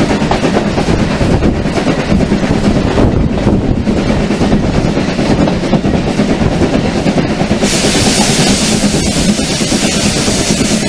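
Heritage railway passenger coach running along the line, heard from an open window: a steady rumble of wheels on rails. About two-thirds of the way through, a louder rush of wind hiss sets in.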